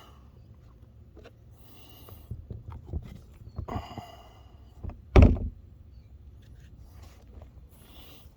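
Small knocks, clinks and scrapes of brake caliper parts being handled, with one loud heavy thunk about five seconds in.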